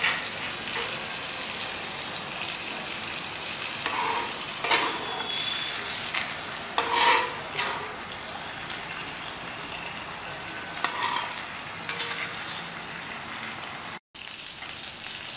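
Two whole catla fish sizzling in hot oil and masala gravy in a large pan, a steady frying hiss. A few short scrapes of a metal spatula against the pan break in now and then.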